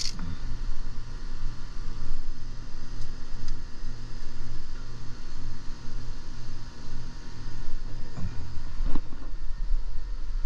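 Inverter-driven outdoor air-conditioning condensing unit running: a steady low hum that pulses about twice a second over a low rumble, with a couple of soft knocks near the end.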